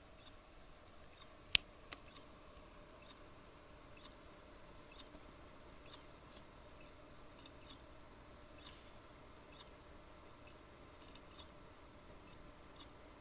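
All-in-one PC heard from the back, giving off irregular faint clicks and short high chirps from inside, with two sharper clicks about a second and a half in, over a faint steady hum. The uploader's warning is that such a noise could be a sign of coming failure.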